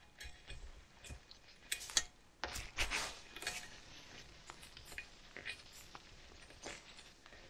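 Half-inch combination wrench clinking and scraping on the bolts of a Jaguar XJ's old front ball joint as they are undone. It is a scatter of short metallic clicks, busiest about two to three and a half seconds in.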